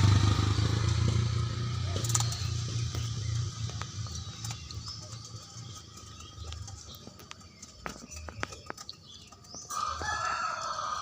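A motorcycle engine's low hum dies away over the first few seconds, followed by scattered light clicks. Near the end a rooster crows once, for about two seconds.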